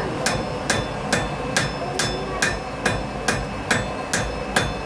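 Blacksmith's hammer striking red-hot iron on an anvil in a steady rhythm, a little over two blows a second. The iron is being forged while it still has colour.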